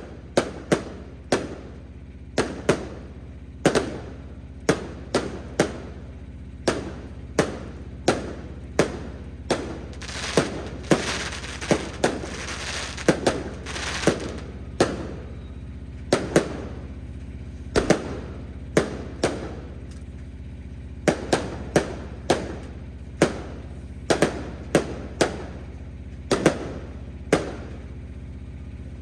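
Fireworks going off in a steady run of sharp bangs, about one or two a second, each ringing out briefly, with a spell of dense crackling in the middle.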